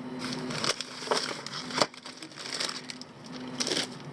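Small plastic multimeter parts clicking, knocking and rustling as they are handled and sorted on a workbench, with a few sharp clicks spread through.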